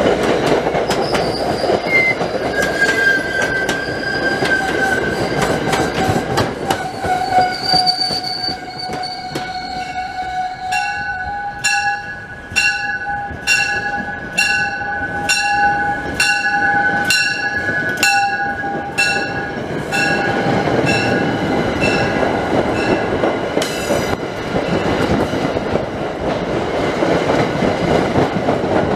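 A train running past, with a steady rumble and wheel clatter and a high squealing tone from the wheels through the first part. From about 11 to 20 seconds in, a bell rings steadily at about one and a half strokes a second over the train noise.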